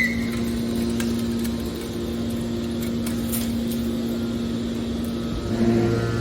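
Steady mechanical hum of running machinery, a constant low tone with a few faint clicks; a louder, deeper hum comes in near the end.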